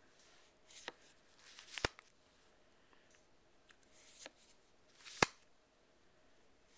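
Magic: The Gathering trading cards being laid down one by one onto a plastic-covered table, with a few sharp card snaps and taps, the loudest about five seconds in.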